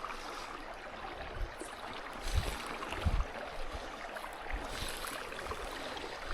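Steady hiss of running water, with two short low thumps about two and a half and three seconds in.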